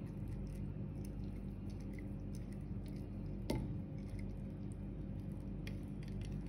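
A metal spoon stirring oats and milk in a glass bowl: soft wet squishing with small clicks of the spoon on the glass, and one sharper knock about halfway through. A steady low hum runs underneath.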